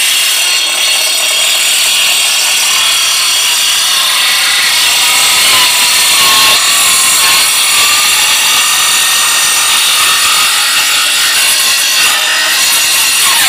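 Power tool running without a break, a loud, even rasping noise that cuts off abruptly right at the end.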